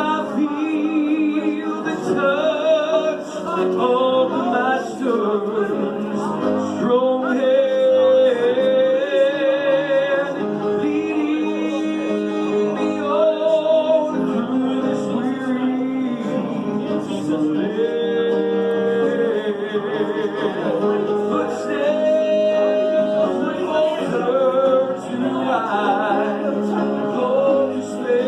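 Worship music with singing: a voice holds long, wavering notes over a steady accompaniment.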